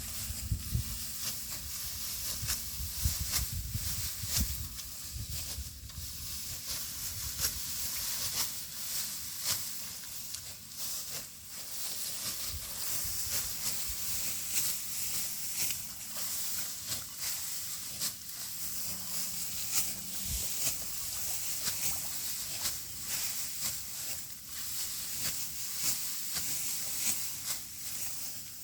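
Rice stalks rustling and crackling in quick irregular clicks as they are cut and handled by hand, over a steady high hiss, with a low rumble in the first few seconds.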